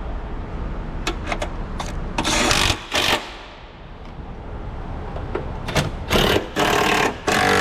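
Hand ratchet wrench clicking in several short bursts of rapid clicks, with a few single clicks before them, as bolts on a car's fender are worked.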